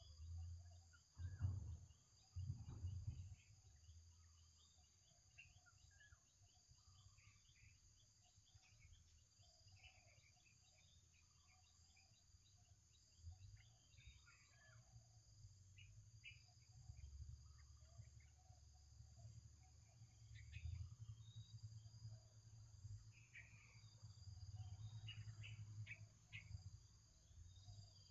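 Near silence: faint background with scattered small chirps and a steady thin high hum like distant insects, under a low rumble. Two soft low thumps come about one and a half and three seconds in.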